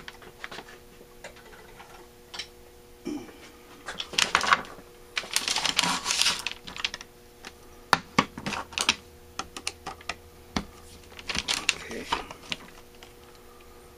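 Metal hand tools, screwdrivers and nut drivers, clicking and clattering as they are picked up, sorted and set down on a workbench, in several short bursts. Near the end a nut driver is fitted onto a screw of the carburetor's choke housing.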